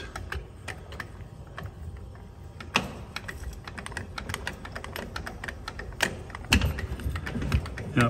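Irregular light clicks and ticks over a faint low rumble as an electric Tesla Model Y creeps backward on concrete, bringing its hitch ball under a trailer coupler.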